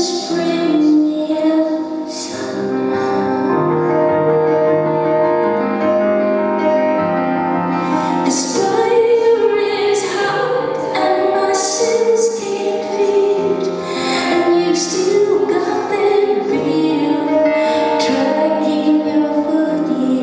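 A woman singing with a solo piano accompaniment, recorded live in a concert hall: held sung notes over sustained chords, without a break.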